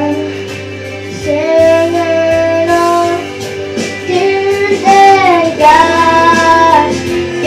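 A boy singing a pop song over instrumental accompaniment, holding three long notes one after another.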